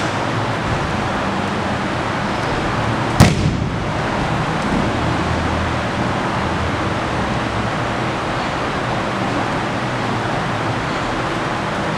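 A judo throw landing: a body hits the mat once about three seconds in, a single loud slap with a short echo, over steady background room noise.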